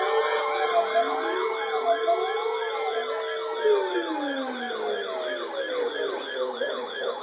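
Several sirens sounding at once, fast yelping warbles layered over slower rising-and-falling wails. One held tone slides down and fades about halfway through.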